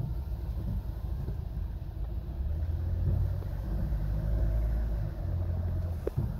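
Low, steady rumble of a car driving, heard from inside the cabin. It grows louder from about two and a half seconds in.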